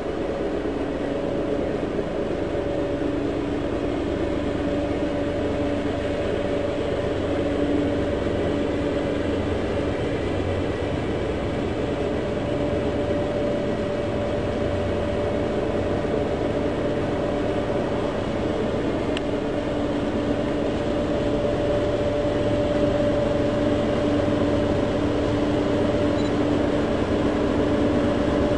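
Diesel locomotive engines droning steadily in the distance, a low rumble with a held hum, growing a little louder near the end as the train approaches.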